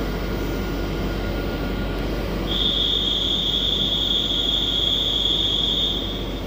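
TER regional train rumbling slowly along the platform. About two and a half seconds in, a steady high-pitched squeal from its wheels or brakes starts and holds for about three and a half seconds, then stops.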